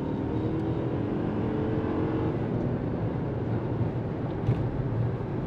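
Steady engine roar with a strong low rumble. A few tones rise slightly over the first two seconds, then fade.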